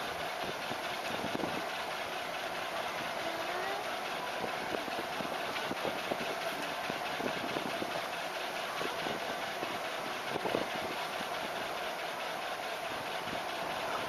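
Aerial ropeway machinery running: a steady mechanical hum with faint, irregular clicks and knocks.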